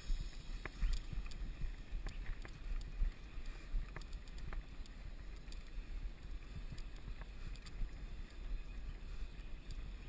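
Mountain bike riding over a dirt forest trail: wind rumbling on the microphone, with scattered short clicks and rattles from the bike over the rough ground.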